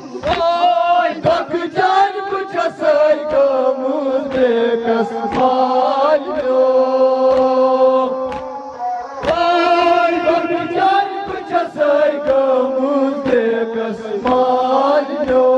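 A Kashmiri noha, the Shia mourning lament, chanted by several men in unison through microphones, with long held notes and phrases that break and start again every few seconds. Sharp slaps of chest-beating (matam) come in irregularly.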